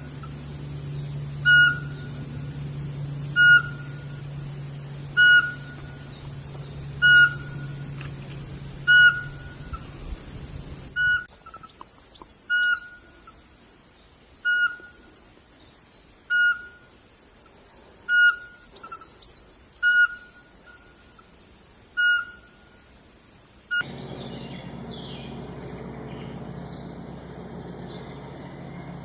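A bird repeats one short whistled note about every two seconds, and a higher, twittering song joins in twice midway. Near the end the sound cuts abruptly to a different recording of many small birds chirping.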